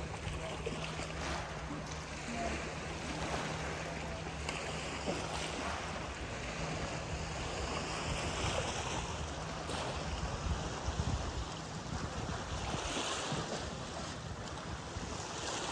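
A boat engine running steadily at low revs, with lakeside water and wind noise on the microphone.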